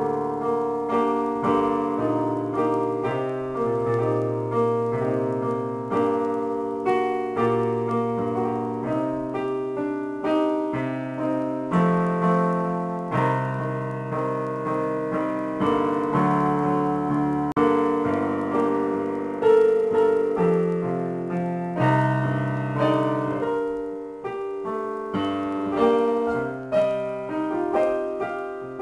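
Yamaha electronic keyboard played with a piano voice: an improvised piece of sustained chords over a slow-moving bass line, starting abruptly from silence.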